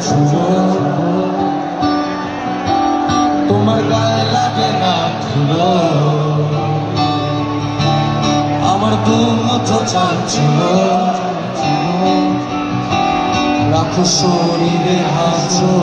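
Live band music played loud through a PA, with guitars to the fore.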